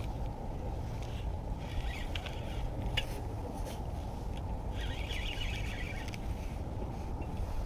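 Spinning reel cranked in two short spells, a fast clicking whir, as a hooked fish is reeled in against the rod's bend. Wind rumbles on the microphone throughout.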